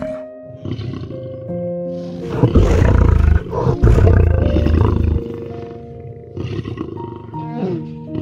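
Lion roaring: two long, deep, loud roars, one right after the other, starting about two and a half seconds in, over soft background music.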